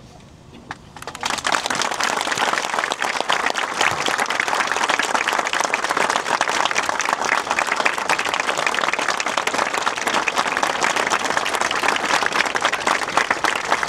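Large outdoor crowd applauding, starting about a second in and keeping up steadily.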